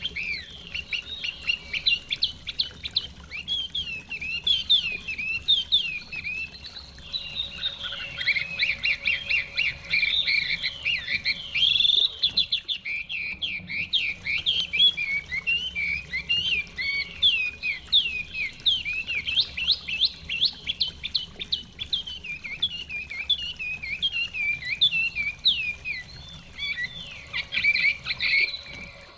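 Chinese hwamei singing a rapid, continuous song of quick rising and falling whistled notes, with a short break about twelve seconds in.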